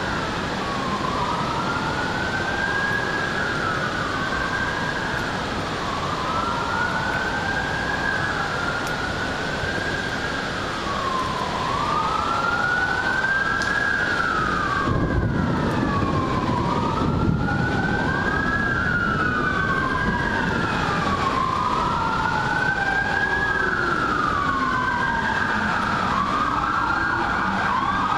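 A distant emergency-vehicle siren wailing, its pitch sweeping down and back up about every three seconds, over a steady hiss. A low rumble rises briefly about halfway through.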